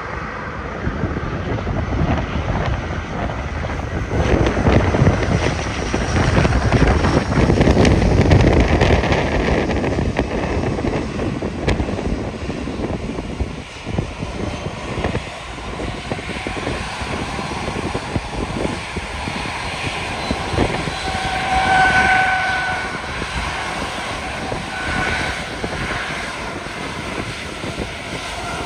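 Bombardier Dash 8 Q300 turboprop passing, its twin Pratt & Whitney PW123 engines and propellers swelling to their loudest a few seconds in, then fading to a steadier drone.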